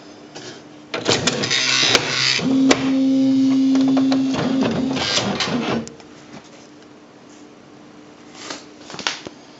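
Smith Corona PWP 3600 electronic typewriter's mechanism running for about five seconds: rapid clatter with a steady motor whine in the middle, then stopping, followed by a couple of clicks near the end.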